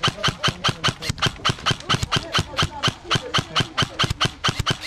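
Airsoft gun on full auto, a steady stream of sharp, evenly spaced shots at about eight a second.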